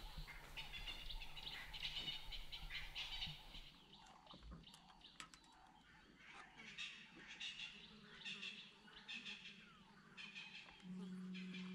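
Faint birdsong in the bush: several birds chirping and trilling over and over. A low steady hum sits under the first four seconds or so and stops suddenly.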